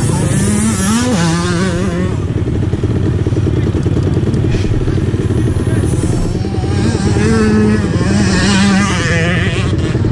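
Motocross dirt bike engine running close to the microphone with a fast, steady chatter, its note rising and falling about a second in and again from about seven seconds.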